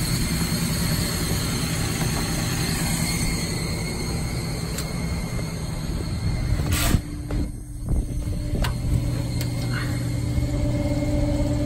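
Steady mechanical drone of running HVAC units, with a steady hum. About seven seconds in there is a sharp knock and a brief dip, after which a steady hum note stands out.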